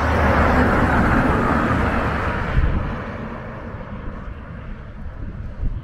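A lorry passing close by on the highway, its tyre and engine noise loud at first and then fading about three seconds in as it drives off.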